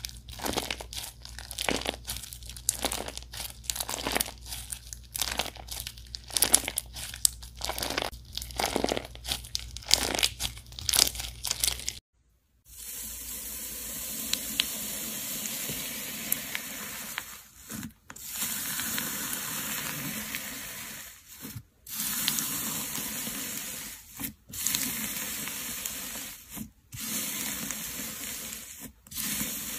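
Hands squeezing and kneading crunchy slime, with dense, irregular crackling and popping. After a short break about twelve seconds in, fingers pressing into bead-filled slime give a steadier hissing crackle, cut by brief gaps every couple of seconds.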